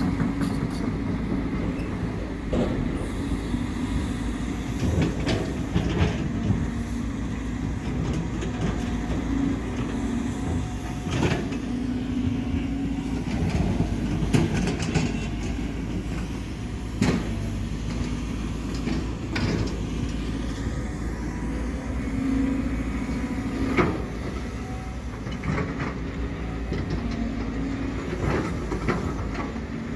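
Cat 320 hydraulic excavator's diesel engine running steadily under load, with repeated sharp clanks and knocks every second or two as it works the soil.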